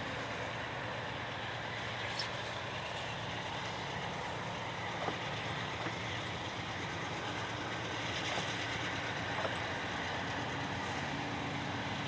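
GE C40-8 and C40-8W diesel locomotives idling while their freight train stands stopped: a steady low rumble, with a few faint clicks.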